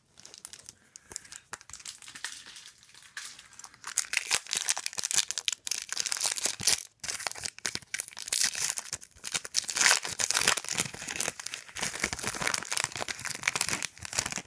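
A plastic trading-card pack wrapper being torn open and crinkled by hand, a dense crackling that gets louder about four seconds in.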